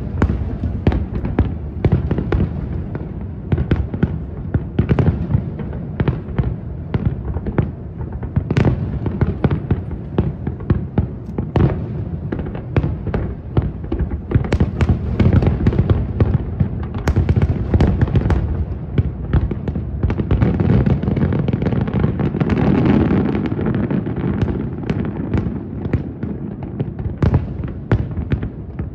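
Aerial fireworks display: a rapid, continuous string of shell bursts and booms over a steady low rumble, with a denser stretch of bursts about two-thirds of the way through.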